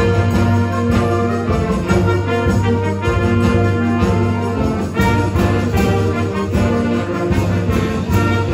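School concert band of woodwinds and brass playing live in an auditorium: sustained full chords over a strong low brass line, with regular accented notes.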